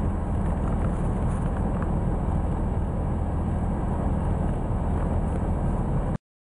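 A 2003 GMC Safari's 4.3-litre V6 running steadily at idle, heard from inside the van. The sound cuts off suddenly near the end.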